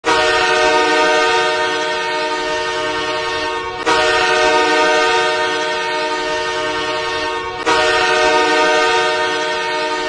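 The Okotoks Oilers' hockey goal horn sounding several notes at once as a chord. It gives three long blasts, each nearly four seconds, one straight after another, and the third is still sounding at the end.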